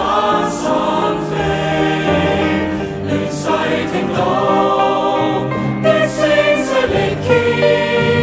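A choral song with several voices singing together over instrumental backing. The melody moves on steadily, with no break.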